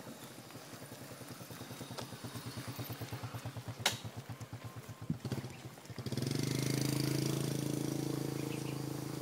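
A small engine, pulsing unevenly at low speed at first, then about six seconds in settling into a louder, steady drone.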